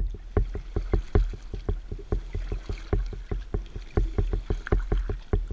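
Water lapping and slapping against the hull of a strip-built wooden sea kayak close to the waterline as it is paddled: a quick run of small slaps, about six a second, over a low rumble.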